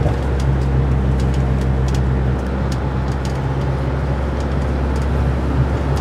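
Steady engine drone and road noise inside a bus cabin cruising at freeway speed, with a low hum and a few faint ticks.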